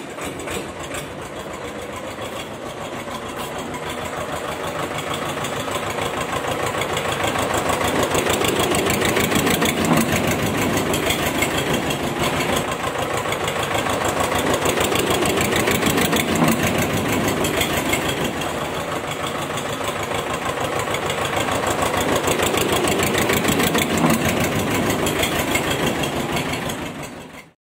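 Tractor engine running with a fast, steady chug, growing louder over the first several seconds and then holding steady before cutting off suddenly near the end.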